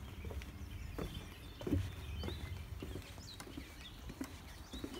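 Footsteps of a hiker in boots on a wooden boardwalk, a hollow knock about every 0.6 s as each foot lands on the planks. Faint bird chirps and a low steady rumble sit underneath.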